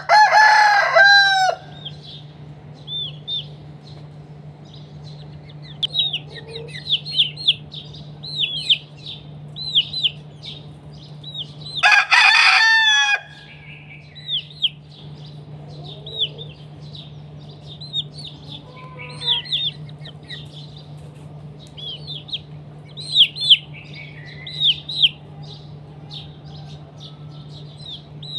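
A rooster crows twice: once at the start and again about twelve seconds in. Between the crows, chicks peep over and over in short, high, falling chirps. A steady low hum runs underneath.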